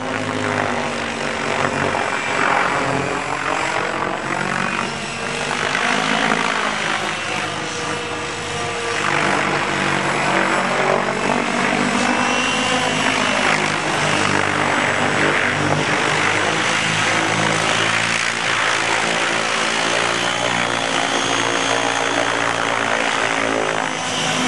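Align T-REX 800 radio-controlled helicopter in flight, its rotor blades and drive running steadily. The pitch sweeps down and back up several times as it manoeuvres and passes by.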